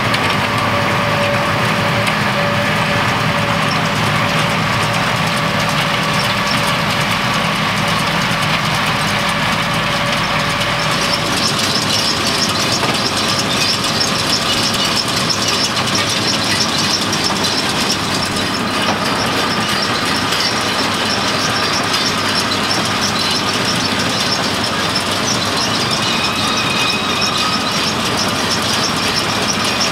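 Tractor and Feraboli round baler working in hay, the baler's pickup, rotor and chains clattering over a steady engine drone.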